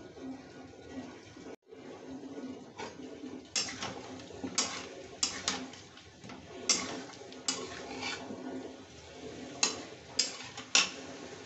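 Chicken pieces sizzling in hot oil in a kadhai. From a few seconds in, a metal spatula stirring them clanks and scrapes against the pan about ten times.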